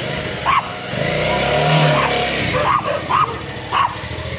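Motorcycle engine running, revving up about a second in and easing back, with several short sharp sounds cutting in over it.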